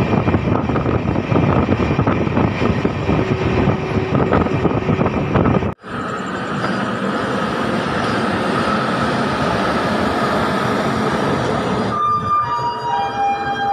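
Indian Railways passenger train heard from an open coach door, running at speed with loud, dense wheel clatter as it crosses a river. After a sudden cut about six seconds in, steadier, softer running noise as the train rolls slowly along a platform. Near the end comes a short chime of several notes stepping downward.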